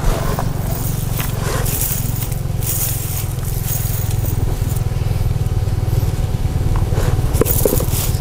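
Fishing net being handled as fish are taken out, with scattered scraping and rustling, over a steady low rumble.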